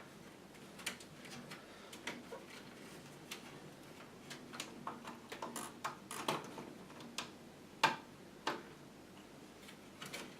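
Irregular light clicks and knocks of parts and cables being handled and fitted inside a PC case, the sharpest about 8 seconds in.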